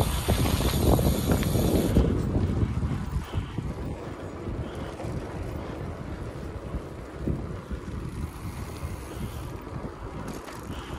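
Wind buffeting the microphone of a camera on a moving bicycle. It is loud for about the first two seconds, then eases to a low, steady rumble.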